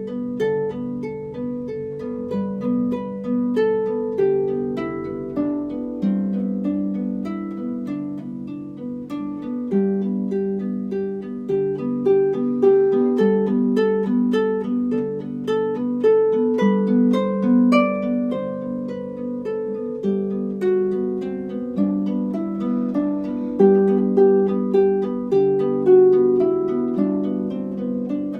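Harp music: plucked arpeggios over a repeating, slowly changing bass line.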